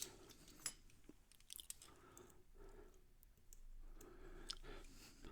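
Faint, scattered clicks of a lock pick and tension wrench working the pin stacks of an older Guard security padlock, setting pins one at a time during single pin picking.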